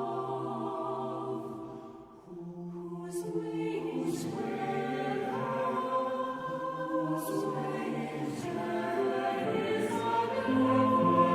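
Music: several voices singing together in long held notes, dipping briefly about two seconds in and growing louder near the end.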